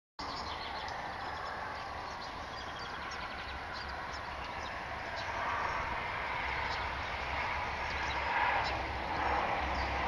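Several songbirds singing at once, many short high chirps and phrases overlapping, over a steady low background hum.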